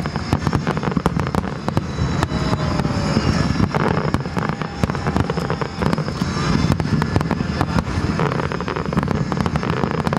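Fireworks display: aerial shells bursting one on top of another in a continuous barrage of booms and dense crackling.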